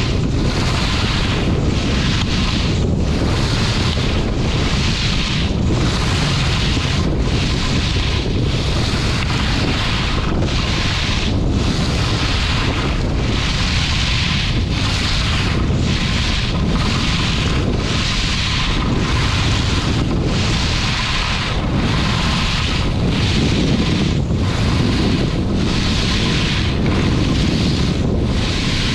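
Wind rushing over the camera microphone of a skier going downhill, with the hiss of skis carving groomed snow that rises and falls in a regular rhythm, a little more than once a second, with each turn.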